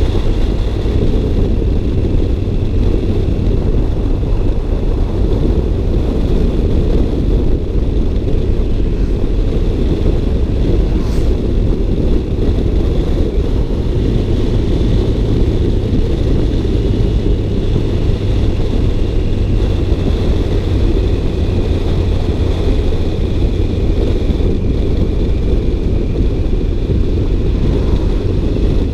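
Car engine and road noise, a steady low rumble as the car runs at an even pace.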